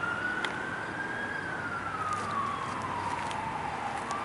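Fire truck siren wailing: one slow rise in pitch, a longer fall, then beginning to rise again near the end.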